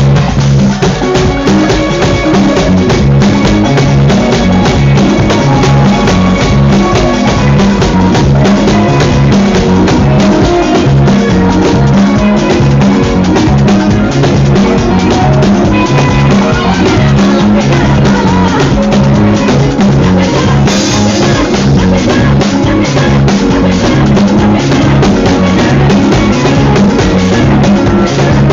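Loud music with a drum kit and a repeating bass line.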